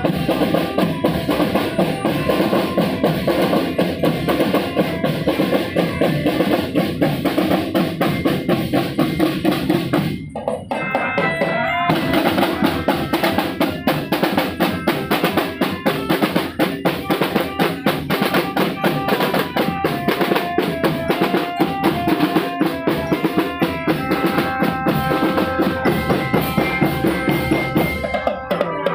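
School marching drum band playing: snare drums, multi-drum tenors, bass drums and cymbals beating a dense, steady marching rhythm. The drumming dips briefly about ten seconds in, and from then on a tune of held notes sounds above the drums.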